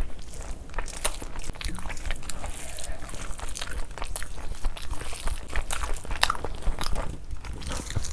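Close-miked hand mixing of basmati rice with mutton liver curry and fried onion strands, a dense run of sharp wet clicks and crackles, with a big handful of the mixture being taken into the mouth and chewed near the end.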